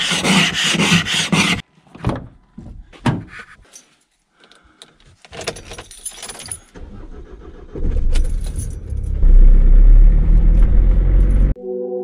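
Keys jangling, then clicks, then a car engine starting and running with a strong low rumble that grows loudest in the last few seconds.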